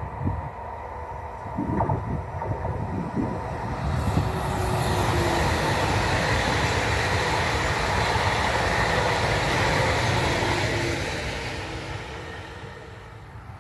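ICE high-speed electric train passing at speed: a rushing noise swells about four seconds in, holds for several seconds and fades away near the end.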